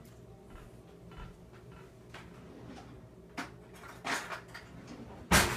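Kitchen room tone with a few light knocks, then a sharp clatter of kitchenware near the end.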